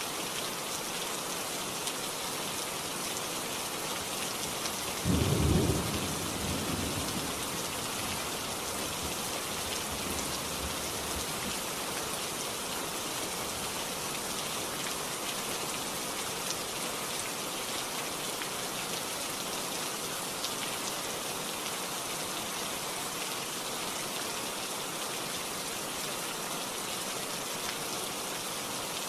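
Steady rain hissing throughout, with one sudden clap of thunder about five seconds in that rumbles away over the next few seconds.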